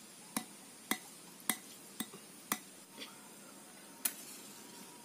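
Sharp metallic clinks, about two a second, as a small tin can is shaken over firewood in a clay stove, then one more click about four seconds in with a short hiss after it, as a match is struck.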